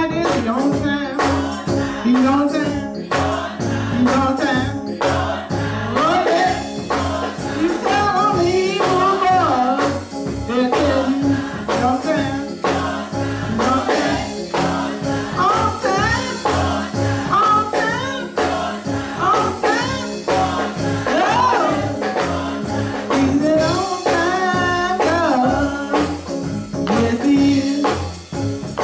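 Church choir singing a gospel song with instrumental accompaniment and a steady beat.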